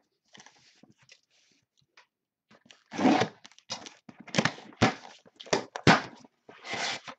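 Cardboard shipping case being handled and opened: from about three seconds in, scraping, rustling and tearing of the cardboard flaps and tape, with two sharp knocks as the box is set down or struck.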